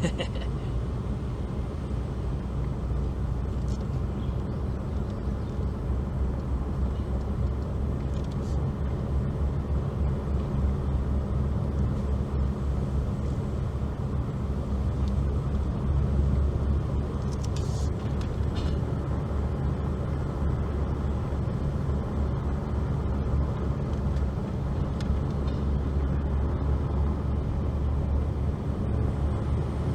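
A vehicle driving along, a steady low engine and road rumble heard from on board.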